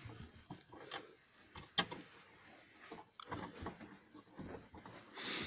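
Scattered light clicks and clatter of small bolts and metal parts being handled and fitted at a washing machine drum, with two sharper clicks a little over a second and a half in.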